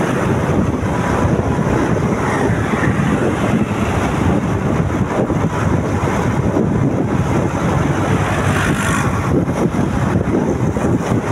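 Steady wind rush on the microphone of a moving motorcycle, with road and engine noise mixed in.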